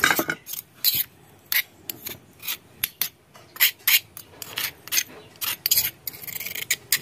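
Metal spoon scraping freshly ground garlic, ginger and pepper paste around a stone mortar, in about a dozen short, irregular rasping strokes with a longer scrape about six seconds in. At the very start the stone pestle is set down on a plate with a knock.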